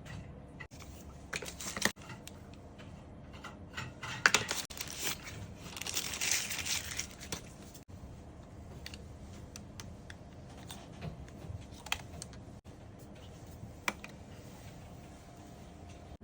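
Handling noise: scattered sharp clicks and taps of small hard objects, with a stretch of rustling and crinkling near the middle.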